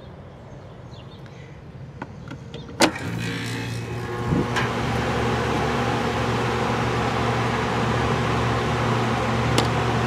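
After a sharp click, the 1977 Lennox condenser unit's compressor and fan motor come on; the hum builds over a couple of seconds and then runs steadily. It is running although the indoor unit is off, which the owner believes is a contactor stuck in the closed position.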